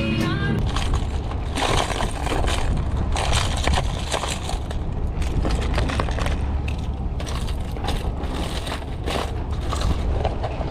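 Hard plastic fishing lures clattering and scraping against each other as hands rummage through an open plastic tackle box. A steady low rumble runs underneath.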